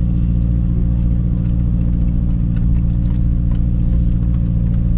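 Car engine and road noise while driving, heard from inside the car: a steady low drone with a few faint light clicks.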